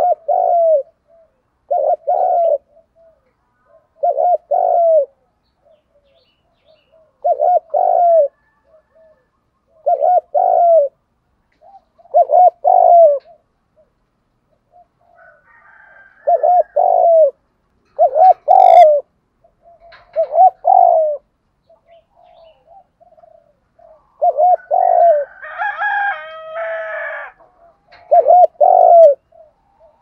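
Spotted dove cooing over and over, a short two-part coo every two to three seconds. About three-quarters of the way through, a longer, higher call overlaps the cooing.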